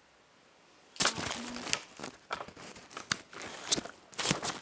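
Hands fumbling with the camera right at its built-in microphone: crackling, rustling handling noise with several sharp knocks, starting about a second in.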